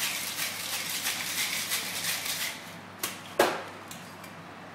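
Ice rattling inside a Boston cocktail shaker being shaken hard, about four strokes a second, stopping about two and a half seconds in. Then come two sharp knocks close together, the second the loudest.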